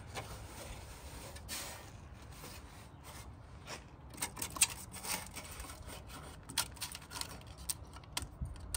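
Irregular rubbing and scraping with scattered small clicks and knocks, busier in the second half, with one sharp click about halfway through.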